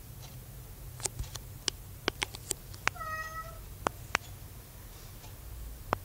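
A cat meowing once, briefly, about three seconds in, among a scatter of sharp clicks and taps.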